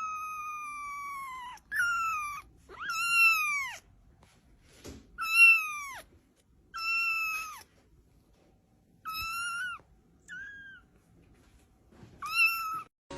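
Kitten meowing repeatedly with high, thin calls, about eight in all: the first is long and slides down in pitch, and the rest are shorter and arch up and then fall.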